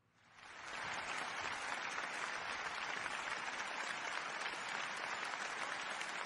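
Applause, many hands clapping, swelling in over the first second and then holding steady.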